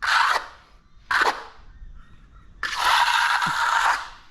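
A hand tool scraping across a concrete surface in short strokes about a second apart, then one longer stroke near the end.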